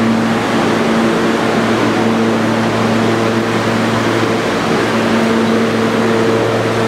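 Steady hum and rush of a New York City subway car standing at the platform with its doors open, its air conditioning and electrical equipment running; a low hum holds throughout while a higher hum drops in and out.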